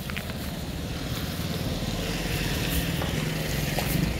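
Small motorcycle engine coming closer, its steady hum growing louder toward the end as the bike nears.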